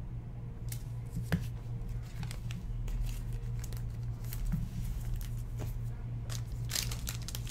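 Trading cards and plastic card sleeves being handled and shuffled by hand: light rustles and scattered clicks, a sharper click about a second in, and denser rustling near the end, over a steady low hum.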